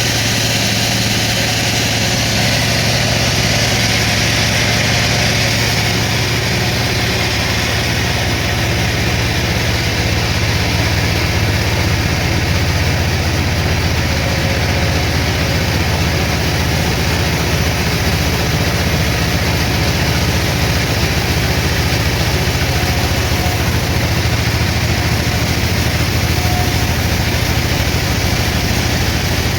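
Sawmill machinery running steadily: a loud, even mechanical drone with a low hum that does not change.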